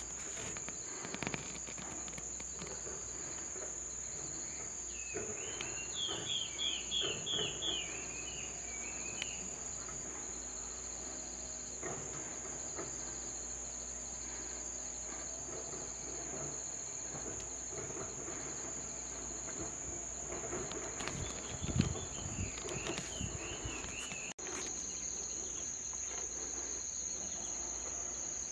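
Insects keep up a steady high-pitched drone. About five seconds in, a bird gives a quick series of about eight falling notes, and a few more come near 22 seconds. There is a low thump about 22 seconds in, and the drone briefly drops out just after.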